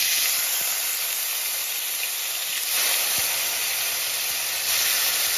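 A piece of yogurt-marinated chicken sizzling in hot oil in an iron kadai: a steady hiss with steam boiling off the wet marinade.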